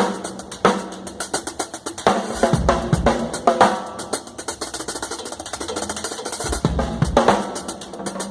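Acoustic drum kit being played at a sound check: bass drum, snare and cymbal hits in irregular patterns and fills, with a cluster of heavier kick hits near the end.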